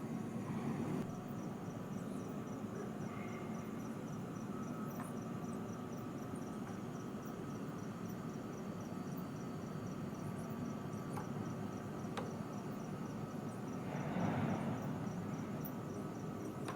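Steady low rushing noise with a faint, high-pitched chirp repeating about three times a second, and a brief louder surge of noise near the end.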